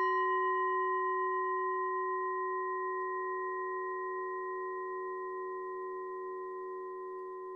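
A bowl-shaped Buddhist meditation bell rings after a single strike, a low steady hum with clear higher tones above it, slowly fading. It is the mindfulness bell that opens a Dharma talk.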